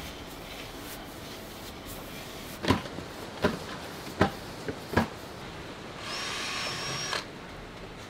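Four sharp knocks about three-quarters of a second apart, then a power drill whirring for about a second with a steady high whine as it bores a hole in PVC drainage pipe.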